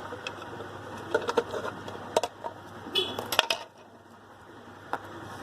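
Light clicks and clatters of small metal parts being handled, in a few scattered bunches: about a second in, around two to three and a half seconds in, and once near the end, over a faint steady low hum.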